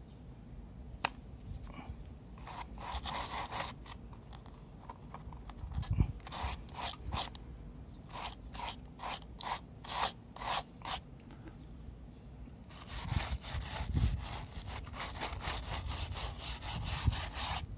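Small hand wire brush scrubbing the rotted, crumbling core of cracked exterior siding to clear away the decayed material, in short back-and-forth rasping strokes. There are a few strokes about three seconds in, then a run of about two strokes a second, then fast continuous scrubbing from about thirteen seconds until just before the end.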